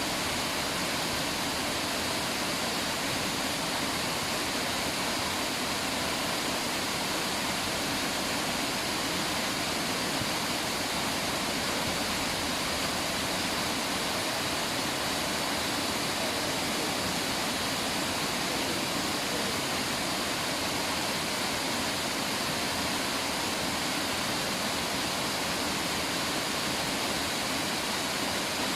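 River water rushing steadily, an even unbroken noise with no single splashes standing out.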